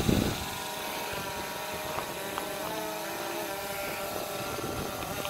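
Small quadcopter drone hovering and manoeuvring close by. Its propellers give a steady buzzing whine of several pitches that slide up and down as it moves.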